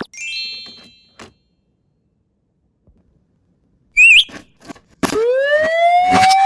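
A siren sound effect winds up about five seconds in, rising in pitch and then holding a steady wail, over scattered small clicks and knocks. Just before it comes a brief, loud warbling whistle, and at the very start a click followed by a short ringing tone.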